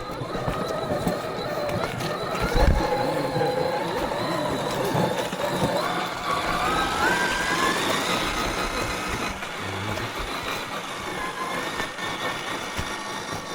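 Motor and gear whine of an FMS Toyota FJ40 RC scale crawler with a Hobbywing QuickRun Fusion SE brushless motor, rising and falling in pitch with the throttle and climbing steadily about six to eight seconds in. A thump about two and a half seconds in.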